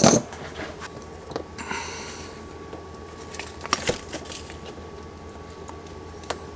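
A sharp click at the start, then a brief rustle about two seconds in and a few light clicks, over a steady low hum: cords and tools being handled on a workbench.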